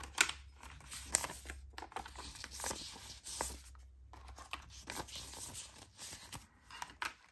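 Canadian polymer banknotes crinkling and crackling as they are handled and sorted by hand into a plastic cash tray, in quick irregular crisp rustles.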